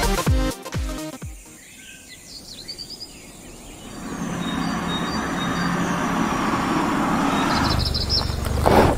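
Electronic dance music cuts out about a second in, and a few bird chirps sound over a faint background. From about four seconds in, a steady rushing outdoor ambience fills in, swelling briefly near the end.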